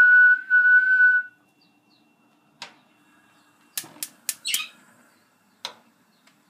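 A person whistles one steady note for about a second. Then come a handful of sharp clicks, spread over the next few seconds, as the gas stove's burner knob is worked.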